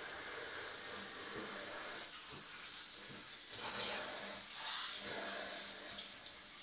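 Kitchen faucet running into the sink while something is rinsed under it, a steady hiss of water with two louder splashing surges, about four and five seconds in.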